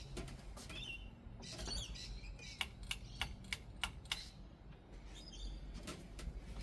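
Birds chirping, with a quick run of about six sharp clicks in the middle.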